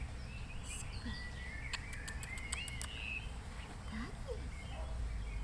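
Birds chirping, with a few whistled notes and a quick run of clicking calls about two seconds in, over a steady low rumble.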